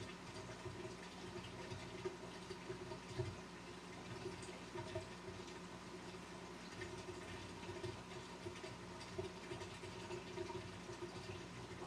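Large aquarium's pump and circulating water: a steady hum under continuous trickling water, with a few faint ticks and splashes.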